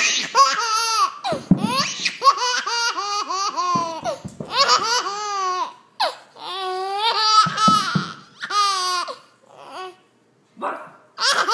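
Baby laughing hard in repeated fits of high-pitched giggles, each bout a quick run of laughs with a breath between, and a short lull near the end.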